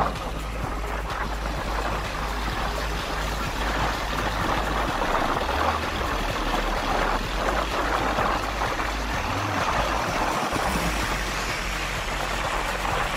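Vehicle driving along a rain-soaked road: a steady rush of tyres on wet tarmac and moving air, over a low rumble.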